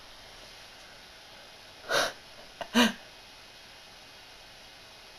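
A person's two short breathy bursts of laughter through the nose and mouth, a little under a second apart, the second with a little voice in it.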